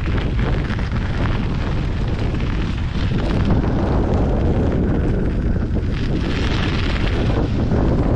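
Wind buffeting the microphone during a bike ride: a loud, steady rumble, with a brighter hiss swelling about six seconds in.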